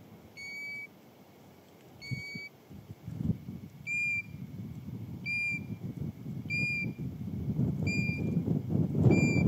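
A bird giving a short whistled call, seven times at intervals of a second or two, each note clear and steady in pitch. Underneath, a low rumble builds toward the end and cuts off suddenly.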